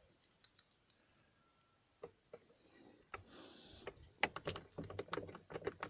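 Scattered sharp clicks and light knocks of hard plastic and metal as an ignition lock is worked out of its steering-column housing by hand. The clicks come thickest in the last two seconds.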